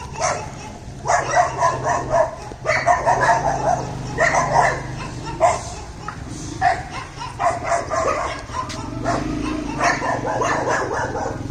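Dogs barking repeatedly in short bouts; the barking comes from local stray dogs, not from the leashed dog, which is said not to bark.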